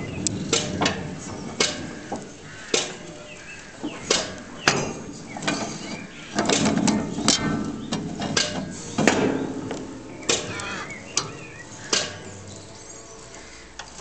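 Massey Ferguson square baler's knotter mechanism working: a run of sharp metallic clicks and clacks at irregular intervals, with a busier clattering stretch in the middle.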